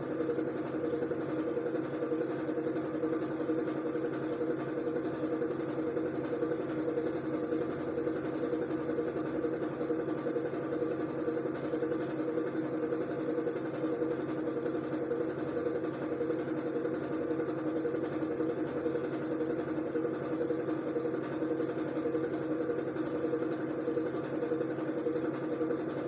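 Steady, unchanging mechanical hum with a constant low drone and a hiss above it.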